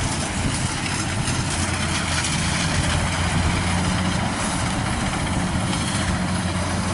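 Kubota rice combine harvester's diesel engine running steadily while it cuts, a low hum with a steady hiss over it.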